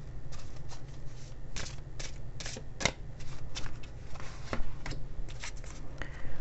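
Oracle card deck being shuffled by hand: a quick, irregular run of card flicks and slaps.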